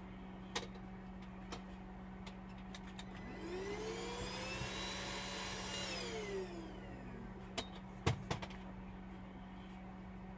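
Small electric screwdriver motor spinning up, running steadily for about two seconds and winding down. A few sharp clicks come before and after it.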